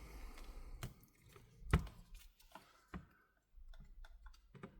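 Scattered light clicks and taps of tablet parts being handled and pressed together, one sharper knock about halfway through.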